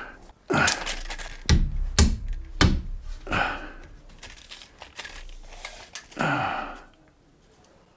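Handling noises from measuring and marking a wooden 2x4 frame board: a few sharp knocks and short rustles, most of them in the first three seconds, with one more rustle about six seconds in.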